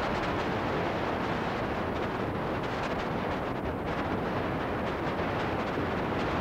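Steady hiss and rumble of VHS tape noise, playing back from a blank, unrecorded stretch of videotape.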